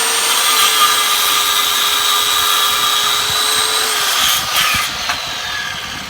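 RIDGID corded circular saw motor running with a steady high whine, then slowing and spinning down from about four seconds in as the trigger is let go.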